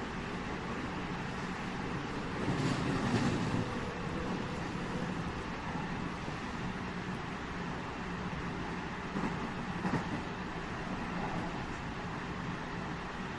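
JR West 207 series 1000 subseries electric train running, heard inside motor car KuMoHa 207-1037: a steady rolling rumble and hum. It grows louder briefly twice, a few seconds in and again past the middle.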